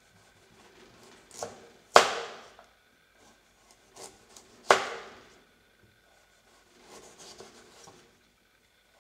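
A kitchen knife slicing a raw carrot lengthwise on a cutting board: soft cutting and scraping, with two sharp knocks of the blade striking the board, about two seconds in and again nearly three seconds later.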